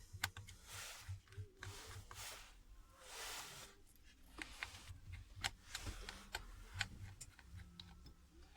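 Small sharp clicks and brief scraping from a precision screwdriver and tools working the small screws out of a smartphone's internal frame.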